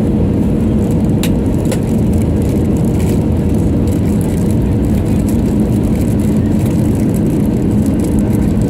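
Steady engine and airflow noise heard from inside the cabin of an Airbus A320 airliner during its approach and landing, with a couple of faint clicks about a second in.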